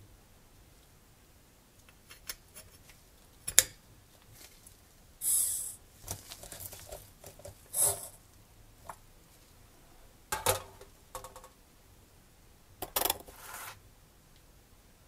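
Small metal and plastic model-engine parts being handled: separate clicks and light knocks as pieces are picked up and set down, with the loudest click a little over three seconds in, and a hex screwdriver working the propeller's retaining screw into the hub.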